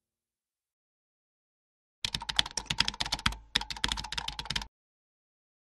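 Computer keyboard typing sound effect: a rapid run of key clicks starting about two seconds in and lasting about two and a half seconds, with a brief break in the middle.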